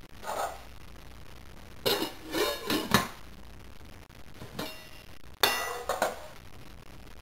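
Metal pots, pans and lids clanging and clattering as they are banged and moved by hand: a quick run of clangs about two to three seconds in, and a loud clang with a ringing tail about five and a half seconds in.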